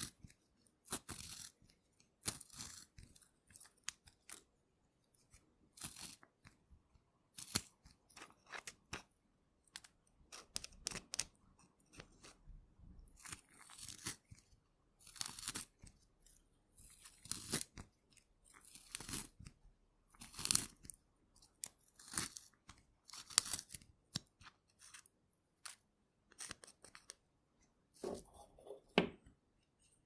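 Wooden pencil being turned in a small metal handheld pencil sharpener, the blade shaving the wood in short scraping strokes, roughly one every second or so. A few duller handling knocks come near the end.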